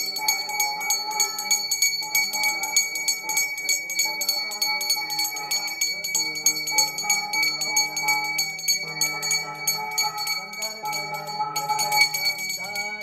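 Brass puja hand bell rung rapidly and without a break, a steady high ring over melodic music. It stops just before the end. This is the bell of Hindu worship, rung during the waving of the lamp (aarti) before the deities.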